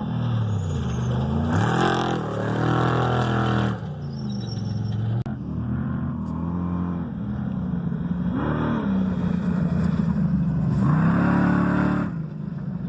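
Spec trophy truck's V8 engine running hard under load, its pitch repeatedly dropping and climbing as the truck accelerates, shifts and backs off. There is an abrupt break in the sound about five seconds in.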